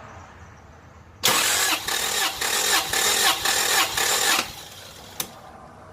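Starter cranking a 1996 Toyota Corolla's four-cylinder engine for about three seconds, pulsing about three times a second. The fuel injectors are unplugged for a compression test, so it turns over without firing. A single short click follows near the end.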